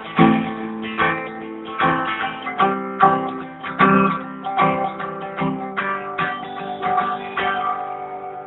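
Acoustic guitar strumming chords, about one strum a second, in the instrumental ending of a song, growing gradually quieter near the end.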